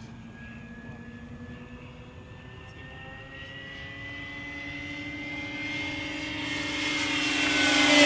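Electric radio-controlled warbird model airplanes flying, their motors and propellers whining. The whine grows steadily louder and edges up in pitch as the planes approach, and it is loudest near the end as they pass close.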